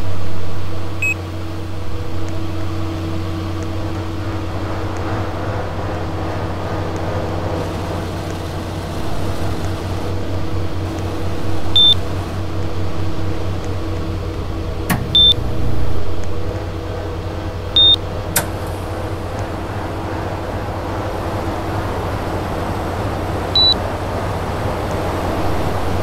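Air conditioner running with a steady hum, broken by a few short, high beeps spaced several seconds apart and a sharp click about halfway through.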